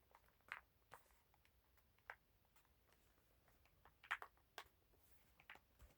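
Near silence broken by a handful of faint, short clicks and taps, the loudest a quick pair about four seconds in: hands handling a mechanical keyboard and its plastic parts.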